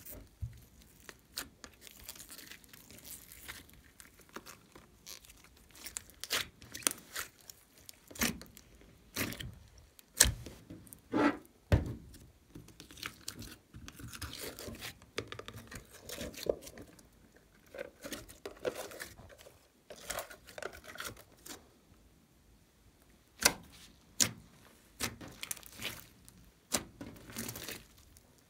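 Hands kneading, folding and pulling a large batch of glossy slime mixed with foam beads, giving sticky pops, clicks and squishes at irregular intervals. The loudest pops come about ten to twelve seconds in.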